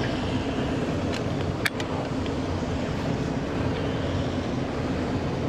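Rigid-hull inflatable boat's engines running steadily, with a single sharp click about a second and a half in.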